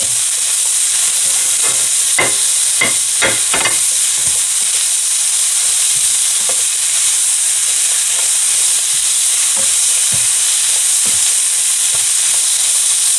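Stir-fried vegetables sizzling in oil in a pan with a steady hiss, while a spatula stirs and scrapes them. A quick run of knocks and scrapes against the pan comes about two seconds in, then lighter taps.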